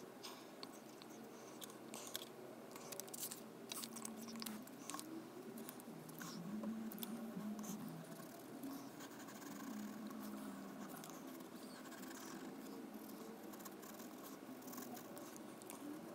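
Stabilo point 88 fineliner pen scratching faintly on sketchbook paper, with many short, quick strokes as the sails are hatched in.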